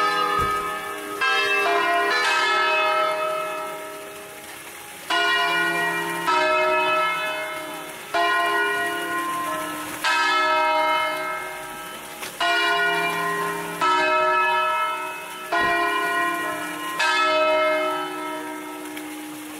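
A concerto of five church bells in E-flat, rung by hand in the traditional scales. The bells swing in the tower and strike one after another, a stroke about every one to two seconds, and each note rings on and fades under the next.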